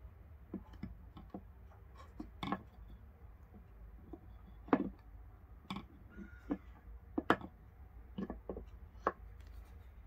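Benchmade AFO automatic folding knives handled on a wooden tabletop: irregular sharp clicks and knocks, loudest about halfway through and again a couple of seconds later.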